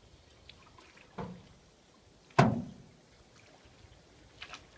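Two hollow knocks on a canoe's hull. The first is moderate, a little over a second in. The second, about halfway, is loud and sharp with a short low ring. Faint water dribbles and clicks come near the end.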